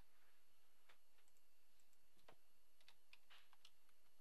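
Faint computer keyboard keystrokes: a handful of short, irregular clicks over near-silent room tone.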